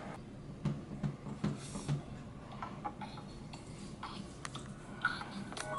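Faint scattered ticks and clicks from a slideshow video played on a screen, over a turntable animation with the tonearm being set on a record. Soft music starts near the end.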